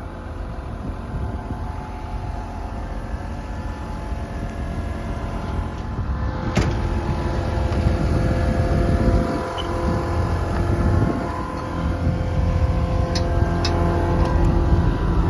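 Caterpillar 315C L excavator's diesel engine running steadily at idle, with a single sharp knock about six and a half seconds in.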